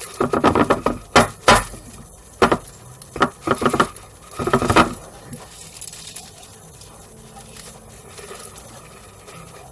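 Dry uncooked rice rattling in its container as it is shaken to pour it out, in several short bursts over the first five seconds, then quieter.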